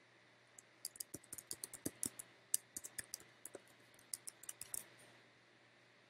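Computer keyboard typing: a quick, uneven run of keystrokes that starts about a second in and stops a little before five seconds.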